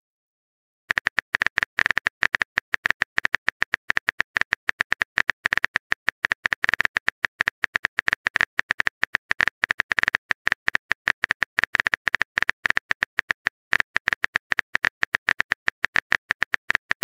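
Phone keyboard typing sound effect from a texting-story app: a rapid run of short, even clicks, one per letter typed, starting about a second in.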